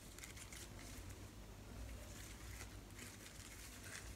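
Faint rustling of bamboo plant leaves and stems being handled and spread out, in several short brushes over a low steady hum.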